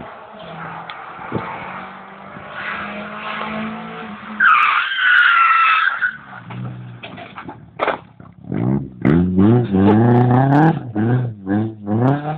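Rally car engine running as the car comes on, then a loud tyre squeal as it skids, about four and a half seconds in. This is followed by a series of sharp knocks and loud shouting voices.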